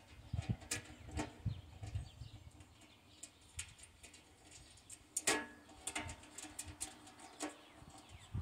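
Stainless-steel camping stove parts clinking and tapping as they are fitted together by hand, a run of light metal clicks with one sharper ringing clank a little past halfway.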